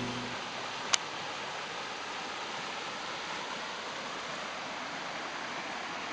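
Shallow stream rushing and rippling over stones, a steady even sound of running water. A short sharp click about a second in.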